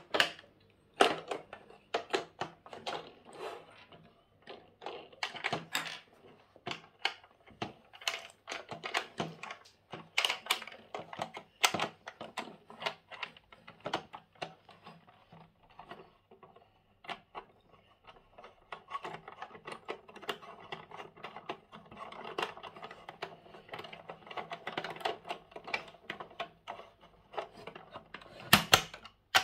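Irregular plastic clicks, taps and rattles as a child handles a toy backhoe loader's plastic parts and screws its wheels on with a plastic toy screwdriver and bolts, with a couple of louder knocks near the end.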